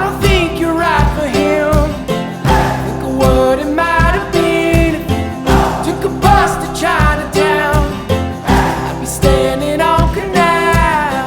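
Background song: a voice singing over acoustic guitar with a steady beat.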